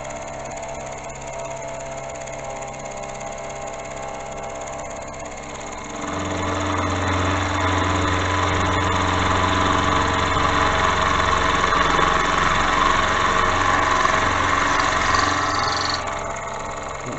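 Milling machine running under power feed, its cutter taking the final pass through a steel block at about 1000 RPM. About six seconds in it grows clearly louder, with a low hum, and it drops back near the end.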